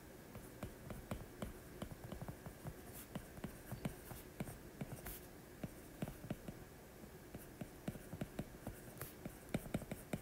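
Stylus tip tapping and scratching on a tablet's glass screen while handwriting: a faint, irregular run of quick clicks and ticks.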